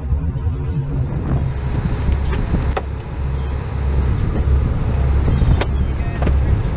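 Boat engine running in a steady low drone, with a few sharp clicks and knocks of handling on deck.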